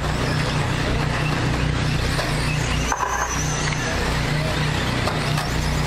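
Radio-controlled short course race trucks running around the track, a high motor whine passing about halfway through over steady track noise.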